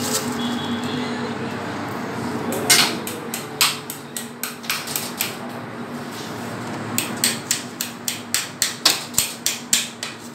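Metal kitchenware being handled, giving sharp knocks and clicks: a few spaced ones, then a quick irregular run of about three or four a second near the end. A steady hum of kitchen equipment runs underneath.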